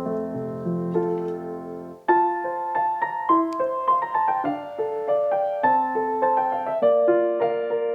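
Background piano music, single notes and chords played gently; it dips away briefly about two seconds in, then a new, brighter phrase starts.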